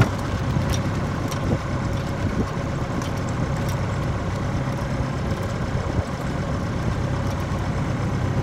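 A boat's engine running at a steady speed, a constant low hum with a few faint clicks over it.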